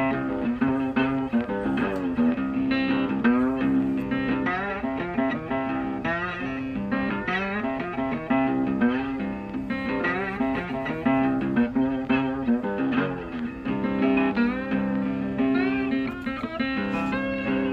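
Background guitar music: a melody of plucked notes, some bending in pitch, over a steady low chord.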